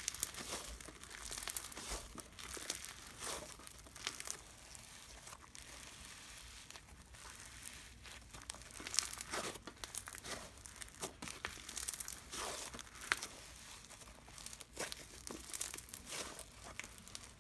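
Slime being squished and stretched by hand, making many small crackles and pops.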